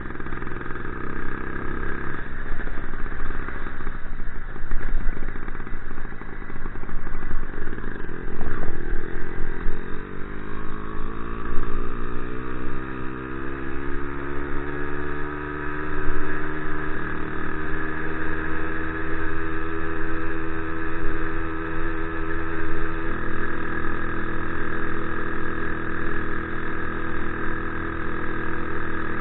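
Motorized bicycle's small engine running under way. About ten seconds in, its note climbs steadily over several seconds as it speeds up, then holds a steady pitch.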